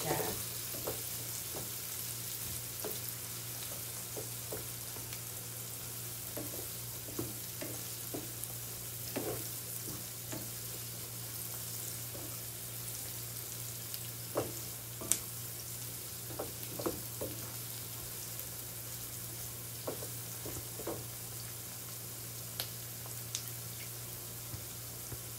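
Diced tomatoes, onion and garlic sizzling in a non-stick frying pan as they are stirred with a slotted spatula, which scrapes and taps against the pan now and then. A steady low hum runs underneath.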